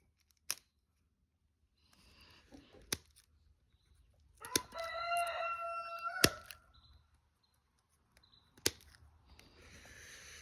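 A single long, steady animal call lasting about two seconds near the middle, with a few sharp clicks before and after it.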